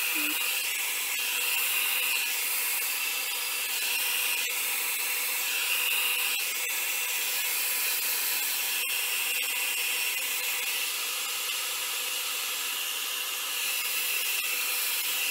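Hand-held hot-air blow dryer running steadily: a rush of air with a steady high whine.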